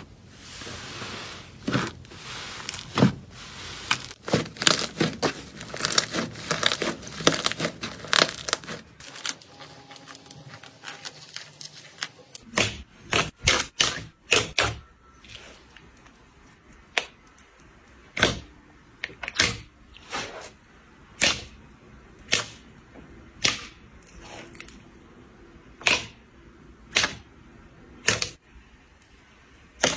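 Slime being worked by hand: dense crackling for the first nine seconds, then after a short lull a quick cluster of sharp pops, then single sharp pops about once a second.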